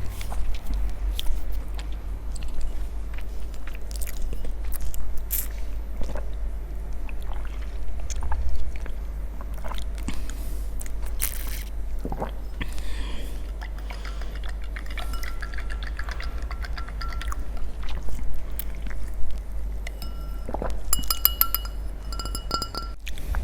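Close-miked eating sounds: crunching and chewing with scattered sharp clicks, over a steady low background hum. Short tonal notes sound in the background in the second half.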